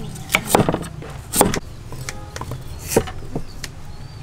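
Cleaver chopping a peeled root on a thick wooden chopping board: sharp, uneven knocks, three in the first second and a half and a few more about three seconds in.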